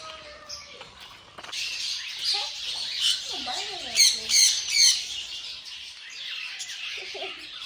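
Many aviary birds squawking and chirping together in dense, overlapping chatter, with three loud squawks about four to five seconds in.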